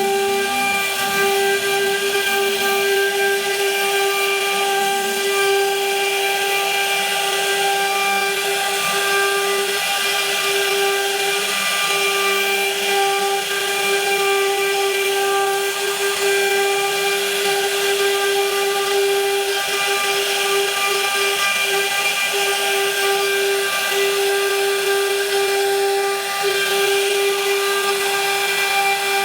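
High-speed router spindle running at a steady pitch while cutting wood, a constant whine over a hiss.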